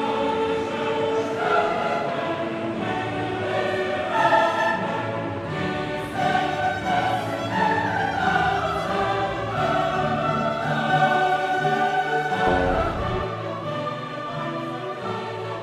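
Choral classical music: voices singing long, held notes over an orchestral accompaniment.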